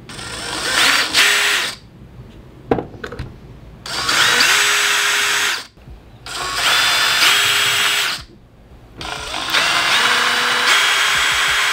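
DeWalt cordless drill boring into a plywood board through a bench vise's mounting holes to mark the four hole positions. It runs in four separate bursts of about two seconds each, the motor whine spinning up as the trigger is squeezed and winding down as it is released.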